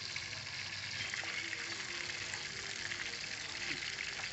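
Fish frying in hot oil in a wok, a steady crackling sizzle.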